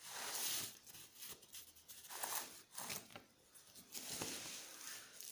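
Faint rustling and scratching of paper being handled, in a few short, uneven swishes.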